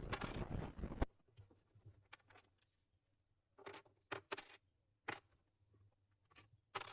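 Faint handling noises: a brief rustle in the first second, then a few scattered light clicks.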